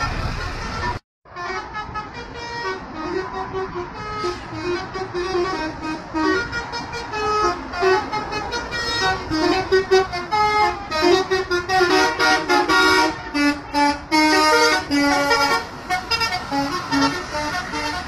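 Bus telolet horn, a multi-tone air horn, playing a tune of quick stepped notes again and again, with a brief break about a second in.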